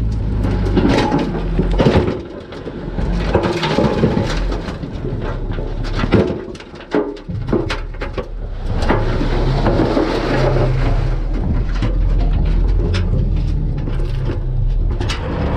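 Diesel engine of heavy construction machinery running steadily under load, with repeated clanks and knocks of the machine and its material over it.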